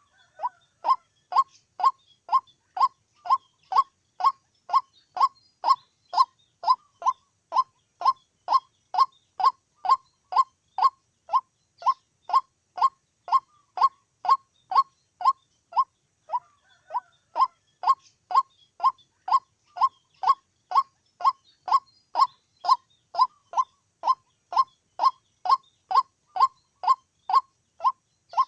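White-breasted waterhen calling: a long, even series of short, clipped notes, about one and a half a second, with a brief break around the middle.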